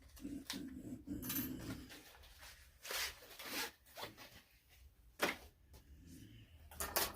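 Rustling and short rasping scrapes from handling a plastic package of small hardware as it is pulled open and rummaged, with a few sharp clicks.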